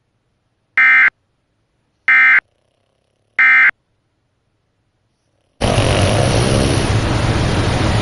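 Emergency Alert System end-of-message tones: three short, identical bursts of SAME digital data warble, a little over a second apart, marking the end of the alert. A loud steady noise starts abruptly near the end.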